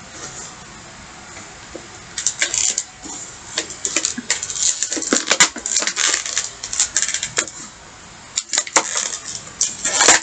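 Stiff plastic toy packaging crackling and crinkling in irregular bursts as it is pried and pulled apart by hand, starting about two seconds in, with a short lull near the end.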